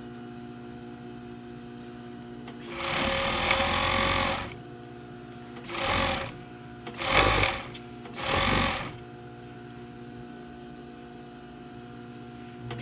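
Industrial sewing machine stitching in four runs: one of about a second and a half, then three short ones about a second apart, with a steady hum beneath between them.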